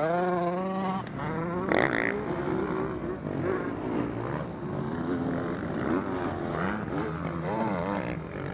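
Motocross dirt bike engines revving, the pitch rising and falling as the throttle is worked, with a louder burst of revving about two seconds in.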